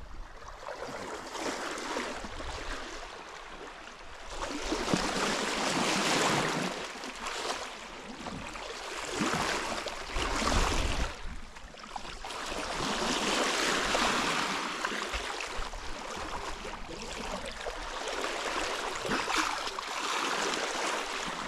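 Water rushing and splashing along a sailboat's hull as it sails, swelling and fading every few seconds.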